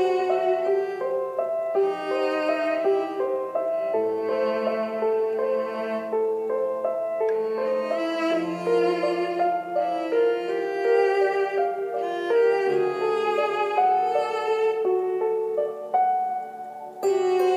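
Instrumental background music: a melody of quickly changing notes over lower held notes.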